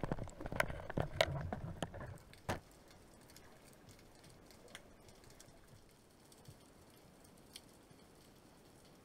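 Underwater clicks and knocks from a just-fired speargun's spear and shaft, lasting about two and a half seconds, then only faint scattered ticking in the water.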